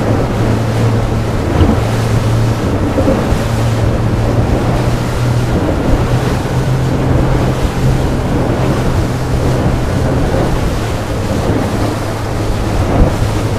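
Wind buffeting the microphone and water rushing and splashing along the hull of a small boat under way, with a steady low hum underneath. The electric outboard makes no distinct engine note, so wind and chop are the main sound.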